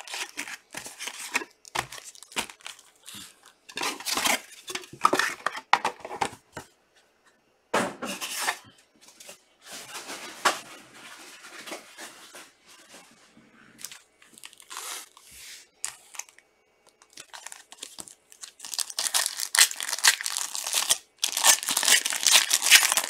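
Foil wrappers of Topps Chrome soccer card packs crinkling as the packs are handled and stacked, in irregular rustling bursts. Near the end a pack is torn open, with dense, loud crinkling and tearing.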